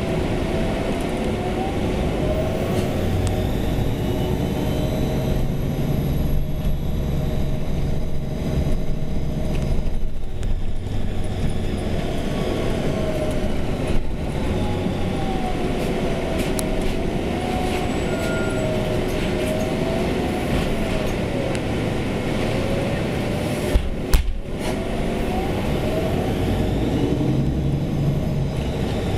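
City bus running slowly through streets, heard from on board: a steady low drone with a thin whine that rises and falls in pitch as the bus speeds up and slows. A short knock about 14 seconds in and a sharper double knock near 24 seconds.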